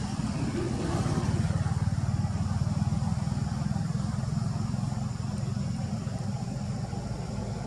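A motor vehicle's engine running steadily, a low rumble that is a little louder in the first few seconds.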